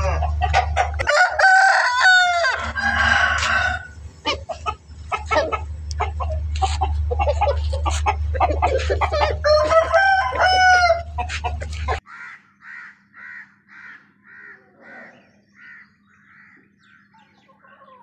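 Aseel roosters crowing: one crow trails off just after the start, another comes about two seconds in and a third about ten seconds in, with shorter clucks between, all over a steady low rumble. After an abrupt cut at about twelve seconds, a run of short, evenly spaced calls, about two a second, grows fainter.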